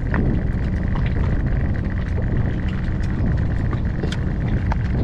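Steady low rumble of wind buffeting the microphone on a small boat, with choppy sea water slapping and splashing against the hull in scattered short bursts.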